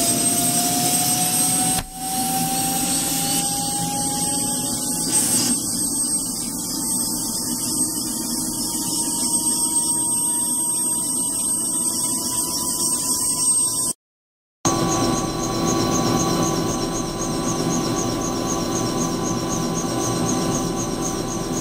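Bell 206 JetRanger's Allison 250 turboshaft engine running with the rotor turning, heard from inside the cabin; its whine rises slowly and steadily in pitch as the engine winds up after start. After a brief dropout about 14 seconds in, it runs steady with a fast, even pulsing in its high whine.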